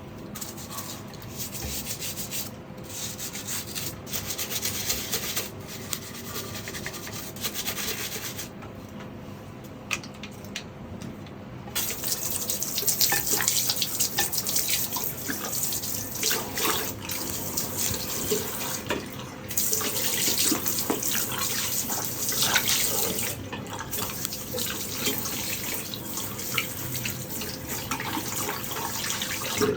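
Tap water running and splashing into a washbasin, uneven throughout, easing off for a few seconds about a third of the way through.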